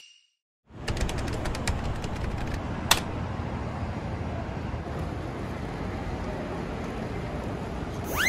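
Steady outdoor city ambience with a low traffic hum, starting after a brief silence, with a few faint clicks in the first seconds. Near the end a sharp whistle-like call rises and then falls.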